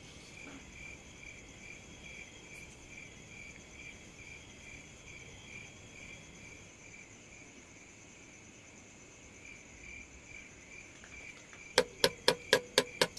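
Crickets chirping steadily, a pulsing trill with a fainter, higher band above it. Near the end a metal spoon clinks sharply against a metal mug about six times, some four strikes a second, as a drink is stirred; the clinks are the loudest sound.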